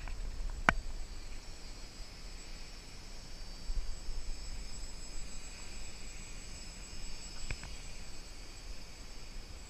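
Distant DJI F450 quadcopter buzzing in flight, a thin high whine that wavers slightly in pitch, over a low rumble. A sharp click comes about a second in and another near the end.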